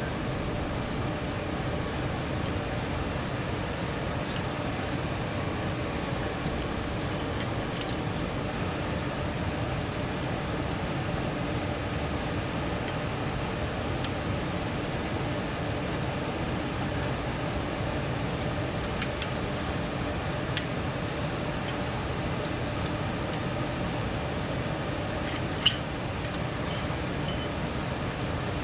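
Steady background hiss and hum, with a scattered handful of light metallic clicks and taps from brake caliper hardware being handled during pad removal.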